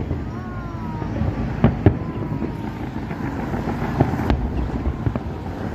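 Fireworks going off in the distance: four sharp bangs in two close pairs, over a steady low rumble of wind and traffic.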